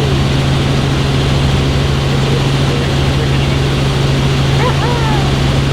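Steady loud drone of a helicopter's engine and rotor heard from inside the cabin, with a strong low hum.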